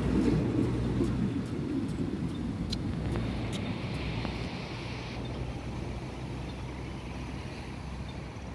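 State Railway of Thailand passenger train (ordinary train 313, hauled by GE locomotive GEA 4556) rumbling past on the rails, fading steadily as the last coaches pull away. There are a couple of sharp clicks about three seconds in.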